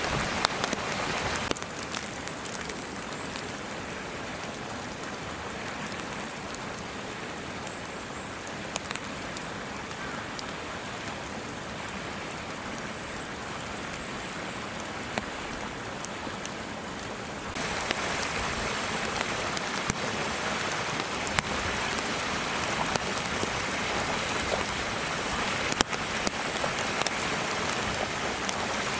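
Heavy wet snow falling and pattering on surfaces: a steady hiss with many small ticks, a little quieter from about a second and a half in until past the middle.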